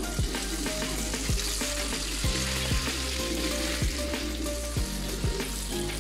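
Unniyappam batter sizzling and bubbling as it fries in hot coconut oil in the wells of an unniyappam pan, the hiss strongest in the middle. Background music with a steady beat plays under it.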